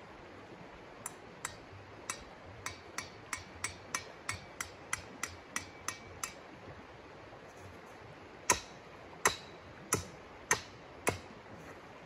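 Tent stake being driven with a mallet: about a dozen quick light taps, some with a short ringing note, then after a pause five hard blows about half a second apart.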